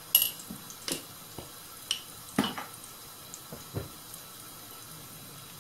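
Meat patties frying in a little oil in a pan, with a low sizzle and a few separate pops and crackles of spitting fat, the loudest just after the start and another about two and a half seconds in.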